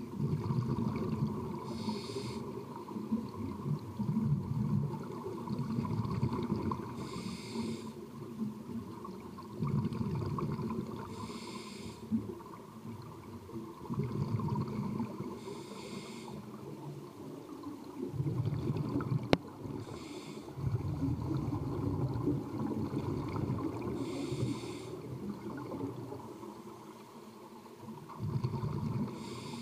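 Scuba regulator breathing heard underwater: a short hiss with each inhalation, about every four to five seconds, seven times, each followed by a longer low bubbling of exhaled air. One sharp click a little past two-thirds of the way through.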